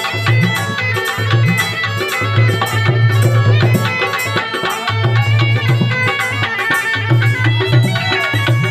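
Been (pungi), the gourd-and-reed snake-charmer's pipe, playing a folk tune over its steady drone, with a low rhythmic pulse underneath.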